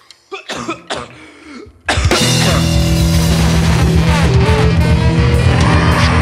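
A few short vocal sounds, then about two seconds in a live band of electric guitar, bass, drums, trombone and saxophone comes in suddenly, playing loud, heavy rock with a fast, pounding beat.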